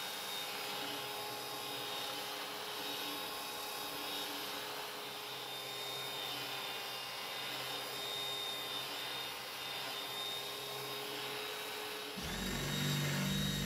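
Graphite handheld belt sander running steadily, its abrasive belt rubbing across a pine board with a steady motor whine.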